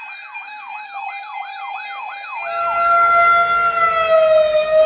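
Electronic siren in a fast yelp, about three or four quick falling sweeps a second. About halfway through it changes to a long tone that slowly falls in pitch, with a low rumble rising underneath and the sound getting louder.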